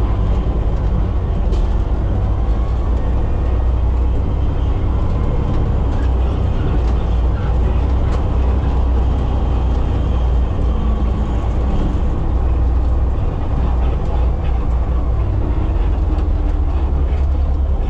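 Front-load garbage truck's diesel engine running as the truck drives slowly over a gravel driveway, heard from inside the cab: a steady low rumble with occasional light rattles.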